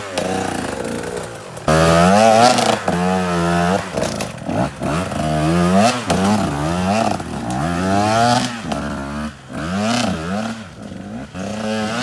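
Small enduro motorcycle engine revving up and dropping back over and over as the throttle is worked off-road. Its pitch climbs and falls about once a second, and it gets suddenly louder a couple of seconds in.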